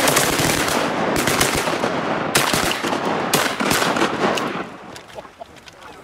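A volley of shotgun fire from several hunters, the shots coming thick and overlapping for about four and a half seconds, then thinning out to a few scattered shots.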